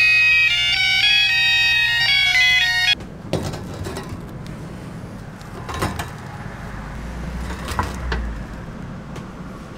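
An electronic beeper plays a loud tune of high, steady notes that cuts off suddenly about three seconds in. After it come a few light knocks and clatters over a low steady hum.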